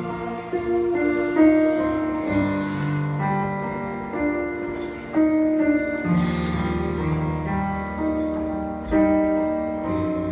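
Instrumental music led by piano: sustained chords, a new chord struck about every four seconds, introducing a song before the voices come in.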